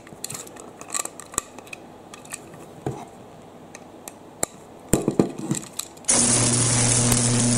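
Small plastic clicks and scrapes as a toy train engine is handled and a screwdriver works a screw on its underside. About six seconds in, the battery-powered toy engine's electric motor switches on and whirrs steadily with a low hum.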